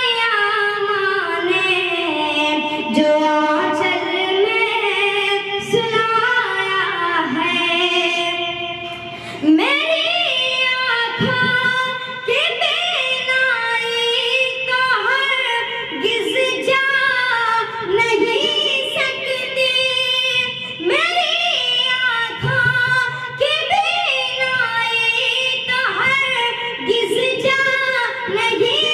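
A boy singing an Urdu ghazal in a long, ornamented melodic line with held notes, pausing briefly about nine seconds in.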